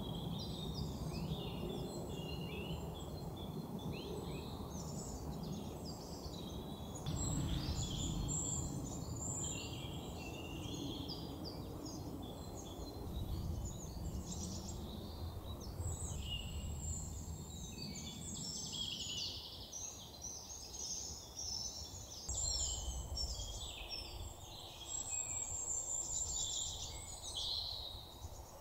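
Woodland birds singing and calling: a busy chorus of many short chirps and trills overlapping, over a low steady background rumble.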